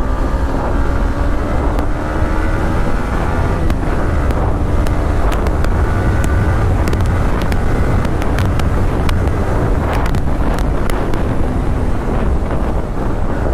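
Yamaha motorcycle engine pulling at speed in fifth gear, its pitch rising over the first few seconds, under heavy wind buffeting on the microphone.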